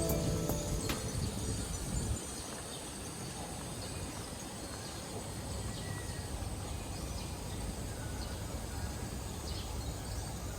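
Outdoor ambience: a steady low hum with faint, scattered high chirps. The tail of background music dies away in the first second or so.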